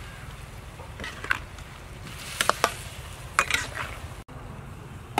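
Metal spatula stirring meatballs in a steel wok, scraping and clinking against the pan a few times, about a second apart.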